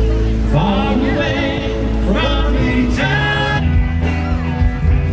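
Music with a singing voice over sustained bass notes, the voice holding notes with vibrato.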